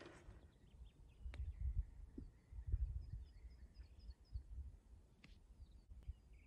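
Faint outdoor sound: wind gusting on the microphone as a low rumble, strongest in the first half, with small birds chirping in short repeated notes. A single sharp tick about a second in is the wedge striking the golf ball on a chip shot, and another faint tick comes near the end.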